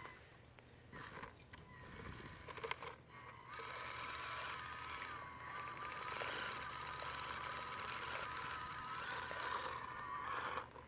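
Small electric motor and drivetrain of a 1/24-scale Axial SCX24 RC rock crawler whining steadily as it crawls over rock, with the pitch wavering slightly. Scrapes and clicks of the tyres and chassis on the rock come in the first few seconds.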